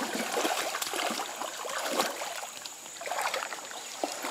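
Shallow creek water trickling, with small irregular splashes as a toddler paddles her hands in it and a man wades through it.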